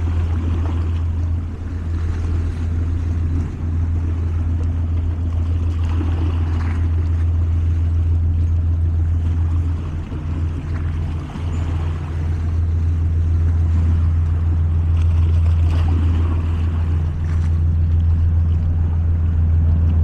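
Small waves lapping and splashing over shoreline rocks, under a steady low engine hum from a boat that dips briefly about halfway through.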